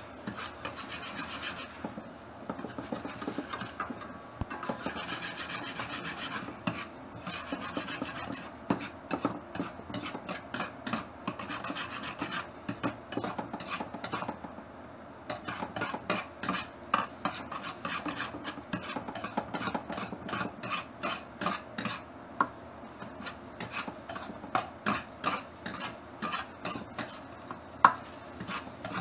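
A ladle scraping and stirring egg mixture around a wok. It makes long scraping passes at first, then from about nine seconds in turns to quick short strokes, several a second, in runs.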